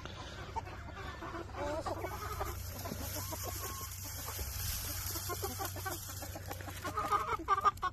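Hens clucking, with a run of short calls about two seconds in and a busier burst of clucks near the end.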